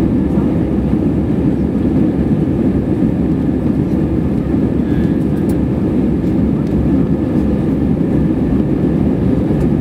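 Steady in-flight cabin noise of an Airbus A320: a constant low rumble of engines and rushing air, heard from a window seat over the wing.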